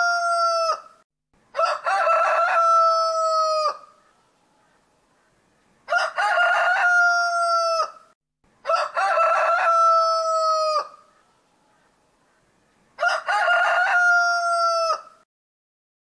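Rooster crowing: the end of one crow, then four full crows in a row with short pauses between. Each crow lasts about two seconds and ends on a long, slightly falling held note.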